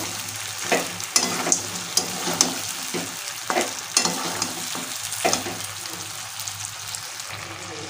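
Chicken and potato curry sizzling in oil in a metal kadai while a long metal spoon stirs and scrapes it, knocking against the pan at irregular intervals, less often near the end: the spice paste being fried down (kosha).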